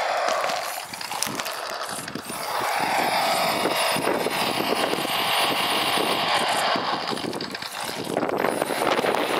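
Small RC rock crawler driving over dirt and twigs. Its electric drive whines and its built-in speaker plays a simulated truck-engine sound, rising and falling with the throttle and dipping briefly a few times.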